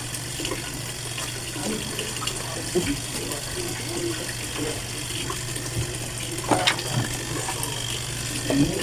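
Midea twin tub washing machine running its wash cycle: the pulsator churns water in the tub over a steady motor hum, with irregular sloshing and a few louder knocks in the last few seconds.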